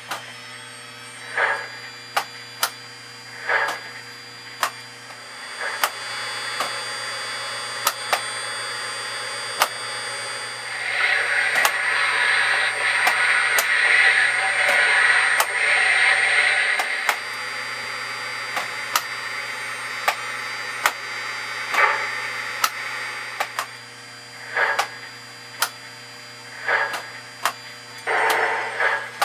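Digital sound system of a Williams brass O-gauge SP GS-4 Daylight steam locomotive model playing its standing sounds: a steady low hum with short puffs every second or two and scattered sharp clicks, and a louder steam hiss from about 11 to 17 seconds in.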